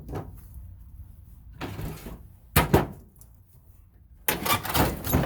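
Metal clanks and rattling scrapes from sheet-metal furnace parts being handled and pulled apart: a couple of sharp loud knocks about halfway through, then about a second of clattering scraping near the end.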